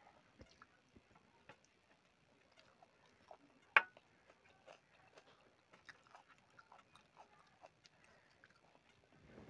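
Faint sounds of a person eating rice and chicken curry by hand from a steel plate: fingers mixing, chewing and small mouth clicks, with one sharp click a little under four seconds in.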